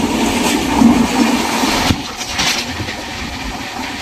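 Express passenger train running along the line, heard from inside the coach: steady running noise of the wheels on the rails, with a sharp clack a little before halfway and a few lighter knocks.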